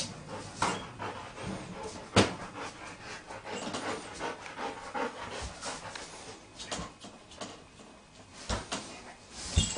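A dog panting and moving about a small pen, with scattered knocks and bumps; the loudest knocks come about two seconds in and near the end.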